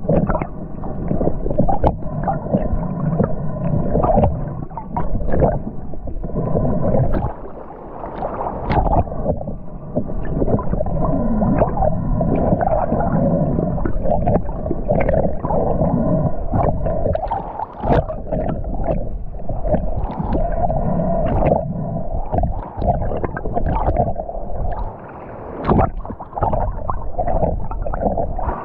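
Sea water heard through an underwater camera just below the surface: gurgling, sloshing and crackling of moving water and bubbles. A steady hum runs underneath throughout.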